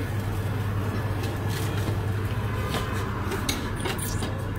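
Metal tongs and a long fork clicking and scraping against the rack and walls of a rotisserie chicken oven as a roast chicken is lifted out, a few short clicks near the end, over a steady low hum.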